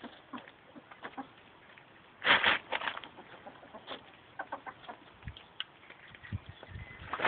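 Loose gravel crunching: one loud crunch about two seconds in, followed by scattered small clicks and scrapes of shifting stones.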